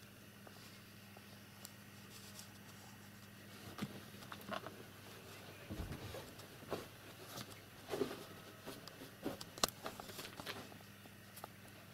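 Scattered light taps, rustles and knocks from a kitten moving about a cluttered computer desk, with a soft low thump about six seconds in, over a faint steady hum.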